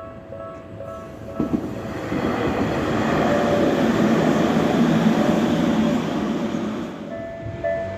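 Electronic level-crossing alarm dinging in a quick repeating two-tone pattern, then a Tokyu Ikegami Line train running over the crossing, its noise swelling in the middle. About seven seconds in, a crossing alarm with a higher pair of tones starts ringing.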